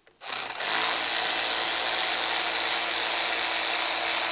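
Cordless drill-driver spinning out a small Torx screw from the convertible top's header trim. It starts about a quarter second in, picks up to full speed within half a second, runs at a steady speed with a constant whine and stops near the end.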